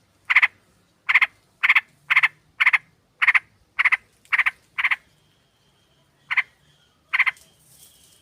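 Yellow-vented bulbul (trucukan) giving harsh, rasping calls of the kind used as a lure to provoke other trucukan. About nine calls come at roughly two a second, then after a pause two more, over a faint thin whistle.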